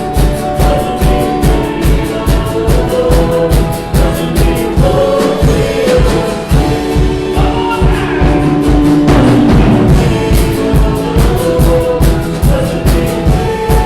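Worship music with a steady driving beat, held chords and voices singing.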